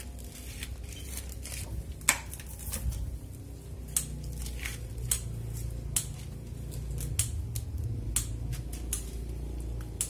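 Bonsai pruning shears snipping twigs, a sharp click at irregular intervals of about half a second to a second, the loudest about two seconds in, over a steady low hum.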